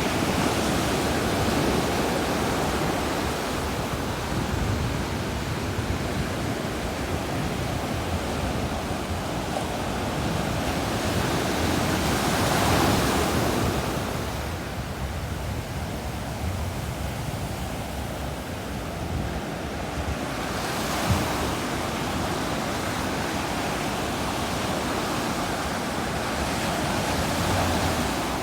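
Ocean surf breaking on a sandy beach: a continuous wash of waves, with one wave breaking louder about halfway through.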